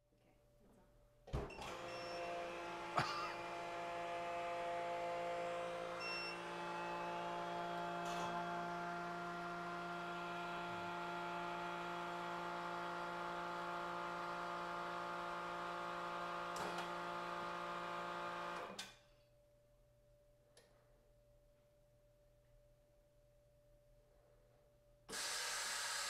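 MEAT! Your Maker chamber vacuum sealer running a cycle. Its pump starts with a click about a second in, runs steadily with a hum for about seventeen seconds, then cuts off suddenly. The next cycle starts near the end.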